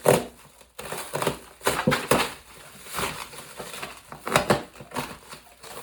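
Cardboard shipping box being cut and pulled open: irregular scraping, crinkling and knocking of cardboard and packing, with the loudest stroke at the very start.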